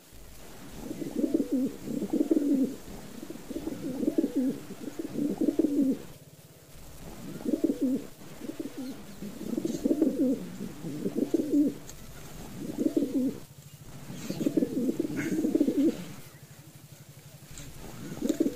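Domestic pigeons cooing, one low throbbing coo after another in bouts of about a second with short pauses between.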